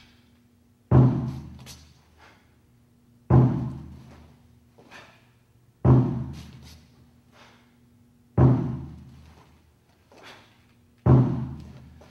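A deep drum struck once every two and a half seconds, five beats in all, each ringing out and fading. It keeps the count that paces each move of the form. Fainter short knocks fall between the beats.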